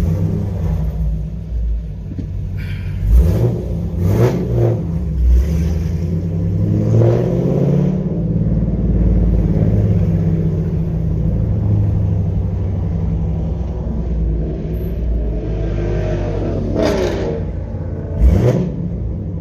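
Camaro SS V8 with aftermarket headers running on the road, the engine revving up a few times under acceleration, with sharp rises in pitch about three seconds in, around seven seconds, and again near the end.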